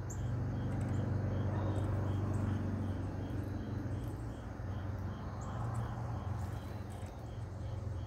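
Evening outdoor ambience: a steady low hum, with an insect chirping in an even pulse about three times a second and a few faint bird chirps.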